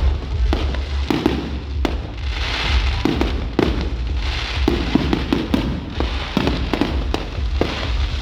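Fireworks going off: a rapid, irregular string of bangs and pops with spells of crackling, over a steady low rumble.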